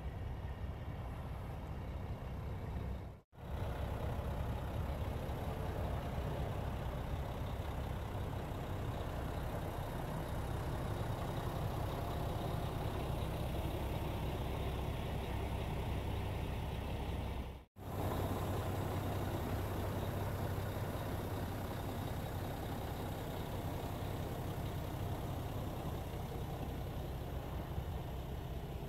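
Mack RD600 truck's diesel engine idling steadily, a low even rumble that cuts out briefly twice.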